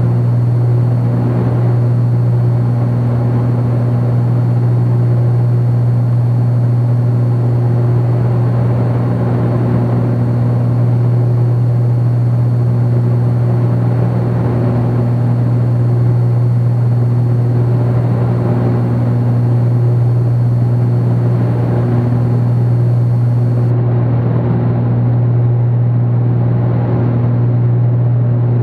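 Twin piston engines and propellers of a Cessna 310Q droning steadily at cruise power, heard inside the cabin. A higher overtone swells and fades every few seconds over the steady drone.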